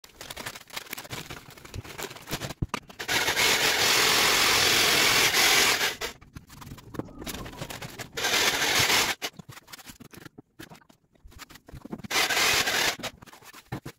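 Corded electric drill with a paddle mixer stirring hardwall plaster in a plastic bucket, running in three bursts: a long one of about three seconds, then two short ones. Quieter rustling and scraping in between.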